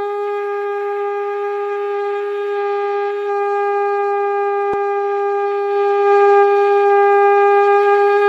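One long blown note from a wind instrument, held at a single steady pitch and growing a little louder about six seconds in.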